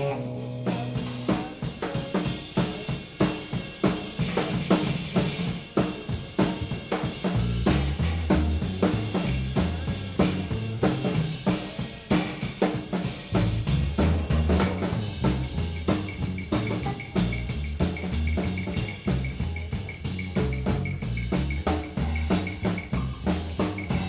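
Live rock band drum kit playing a steady beat on kick, snare and hi-hat. A bass line joins about seven seconds in, and a held high note enters around sixteen seconds.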